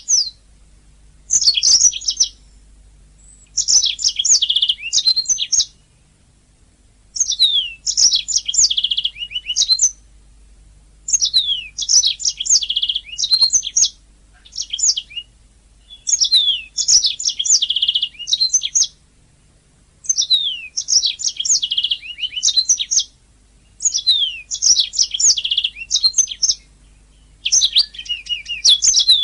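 Domestic canary singing in repeated phrases of fast trills and quick downward-sliding whistles. Each phrase lasts two to three seconds, with short pauses between them, over a low steady hum.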